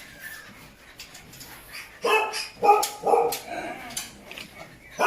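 A dog barking, three or four short barks in quick succession starting about two seconds in.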